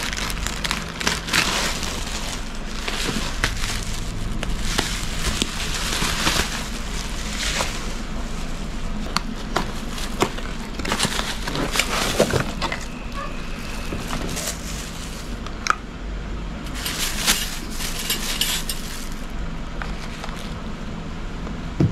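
Plastic packaging crinkling and rustling in irregular bursts as a hand mixer is unwrapped from its plastic bags and box, over a steady low hum.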